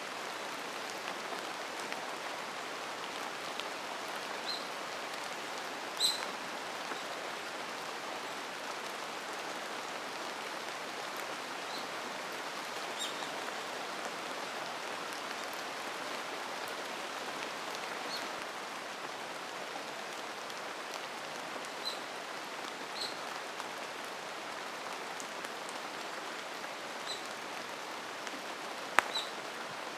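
Steady rain falling in a mountain forest, an even hiss, with occasional single drops striking close by, the sharpest hit near the end.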